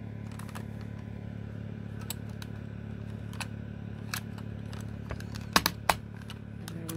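Small plastic clicks and handling noises as an AA battery is pushed into the battery compartment of a Sony WM-FX425 cassette Walkman, with two sharper clicks about five and a half seconds in.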